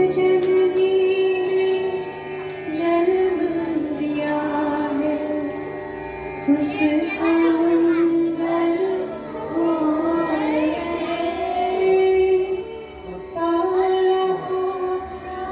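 Devotional prayer music with singing: a held, slowly stepping melody over a steady drone, with wavering sung lines through the middle.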